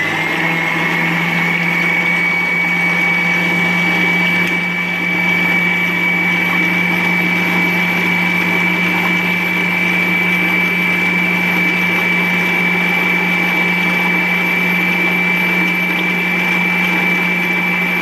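Electric stand mixer running at a steady speed with a constant high motor whine, its beater mixing eggs, yogurt, water and yeast into a thin batter in a stainless steel bowl.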